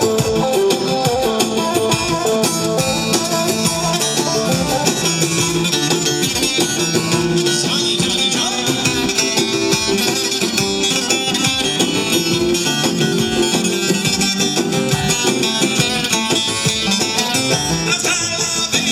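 Loud Kurdish wedding dance music: a plucked-string melody over a steady, driving beat.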